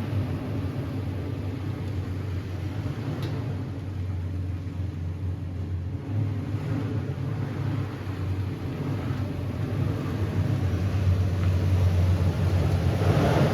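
Pickup truck engine running with a steady low rumble, growing somewhat louder in the last few seconds.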